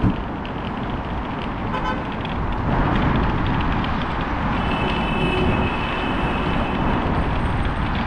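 City street ambience with steady traffic noise. A short beep comes about two seconds in, and a high, steady tone sounds for about two seconds around the middle.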